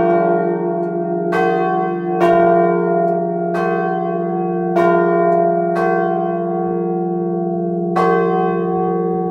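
Three church bells cast in 1954 ringing together in full peal, heard close up inside the belfry. Clapper strikes come at uneven intervals, six in all, over the continuous overlapping hum of the swinging bells.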